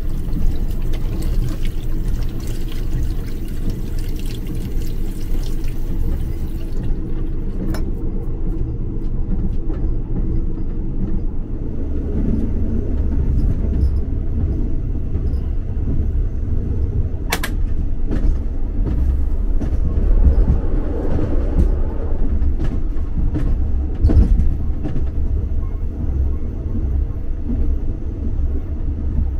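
A train compartment's low rumble, with a tap running into a small metal-fitted washbasin for the first several seconds until it is shut off about seven seconds in. After that the rumble grows, broken by a few sharp clicks and knocks.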